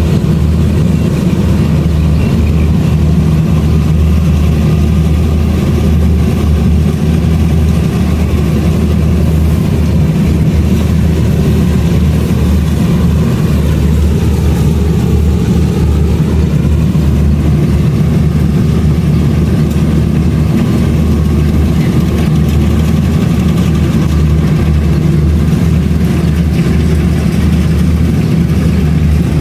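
Kubota DC-70 Plus combine harvester's diesel engine running steadily at working speed, a loud even drone.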